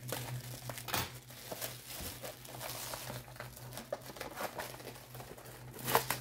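Package wrapping crinkling and rustling as it is handled and pulled open, with irregular crackles that are louder about a second in and near the end.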